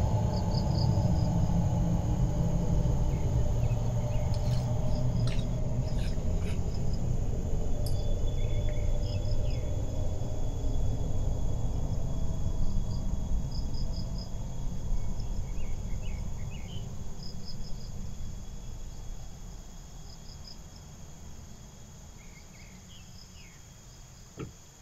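Insects, crickets, chirring steadily with small repeated chirps, over a low rumble that fades out over the second half.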